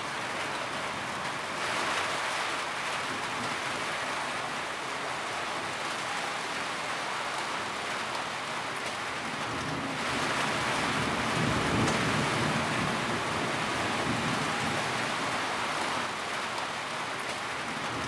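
Steady rain falling, an even hiss of many drops. About ten seconds in it grows louder for several seconds, with a low rumble underneath.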